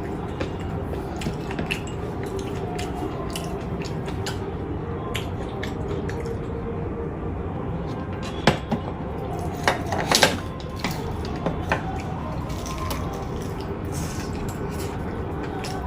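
Eating sounds: scattered clinks of a utensil against a plate, with a few louder clicks a little past the middle, over steady low background noise.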